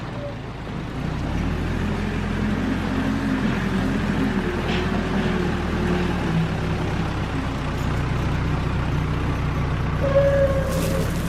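Caterpillar backhoe loader's diesel engine running under load while working, its pitch rising and falling with the throttle. A steady high whine joins near the end.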